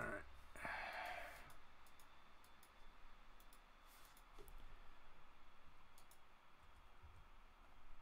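Faint, scattered clicks of a computer mouse and keyboard, with a breathy exhale like a sigh about a second in.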